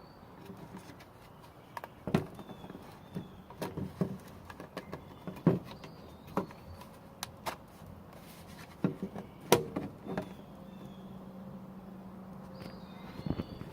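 Scattered clicks and knocks of a plastic electric mosquito trap being handled and opened, with a few faint high chirps; a low steady hum comes in about ten seconds in.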